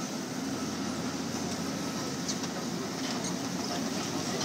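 Caterpillar tracked excavator's diesel engine running steadily while it tears into a building, with faint scattered crunches and clanks of debris.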